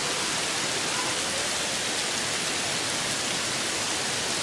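Heavy rain pouring down in an even, steady hiss.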